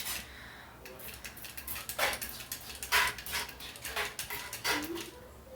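Small plastic toy water gun being squirted over and over, a quick irregular series of sharp spurts and trigger clicks, with a few brief squeaks.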